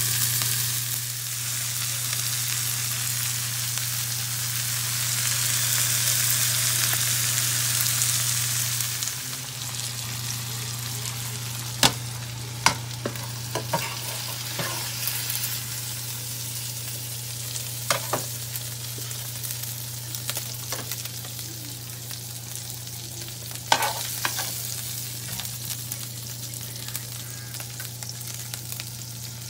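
Steak, onions and melting provolone sizzling in a frying pan, loud for about the first nine seconds and then quieter. Several sharp clicks and clacks of cooking utensils follow, over a steady low hum.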